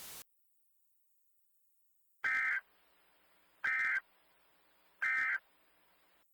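Emergency Alert System end-of-message signal: three short, identical digital data bursts about a second apart, the SAME 'NNNN' code that closes an EAS alert. A background static hiss cuts off just before them.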